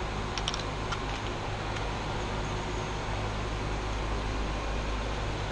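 Steady low hum of ventilation fans, with a few faint small clicks in the first second as .22 cartridges are handled at the bench.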